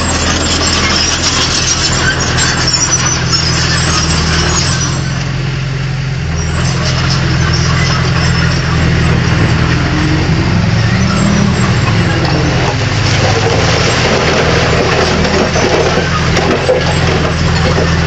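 Bulldozer's diesel engine running with a steady low drone and rough mechanical noise over it; the engine note shifts a little about halfway through.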